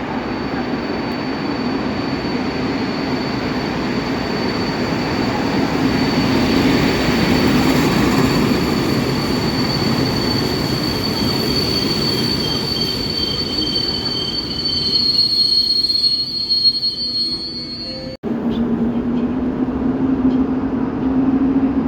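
Train running on the rails with a steady high-pitched wheel squeal over a low rumble; a second, lower squeal tone joins partway through. About 18 seconds in the sound cuts off abruptly, and a train's low hum follows, slowly rising in pitch.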